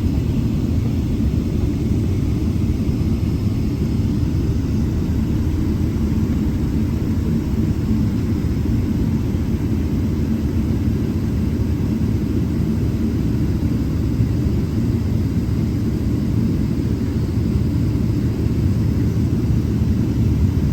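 Steady low rumble inside a Boeing 777-300 passenger cabin on the ground before departure, with no change in level.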